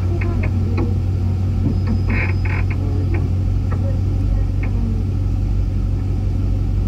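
A 2014 Camaro SS's 6.2-litre L99 V8 idling steadily, with a low drone through Kooks long-tube headers, high-flow cats and an X-pipe exhaust.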